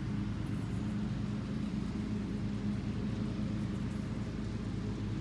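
Steady low mechanical drone, a constant engine-like hum that holds an even pitch throughout.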